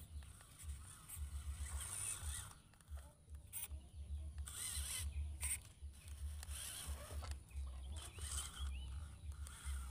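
Birds chirping and calling in short curved notes, over a choppy low rumble.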